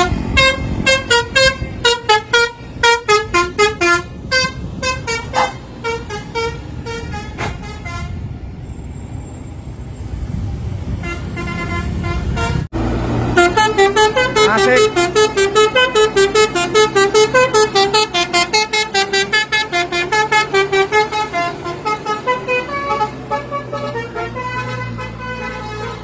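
Indonesian bus 'telolet basuri' musical horns playing fast melodies of short pitched toots. The horn stops about eight seconds in, leaving a quieter spell, then another bus's horn starts a new melody just after a sudden break about halfway through.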